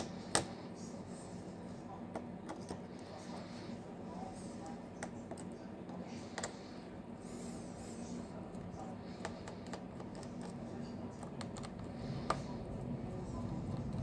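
Precision Phillips screwdriver clicking and ticking against the small screws and plastic midframe of an opened smartphone as the screws are undone: scattered light clicks, with a sharper click about half a second in and others around six and twelve seconds in, over a steady low hum.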